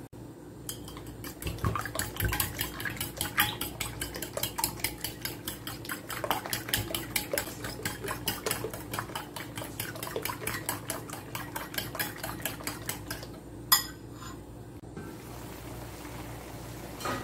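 Eggs being beaten in a ceramic bowl with a ceramic spoon: rapid, even clinking of the spoon against the bowl, which stops about thirteen seconds in after one sharper knock.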